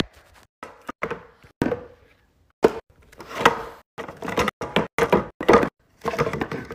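A string of knocks and thumps as a plastic baby doll is carried and set down in a toy bed, the doll and the bed's sides bumping together.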